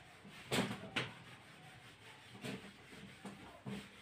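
Handheld whiteboard eraser rubbing across a whiteboard in several short, faint strokes, the strongest about half a second and a second in.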